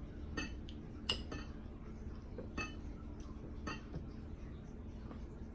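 Cutlery clinking lightly against a dish, four short clinks spread over a few seconds, with quiet room tone between.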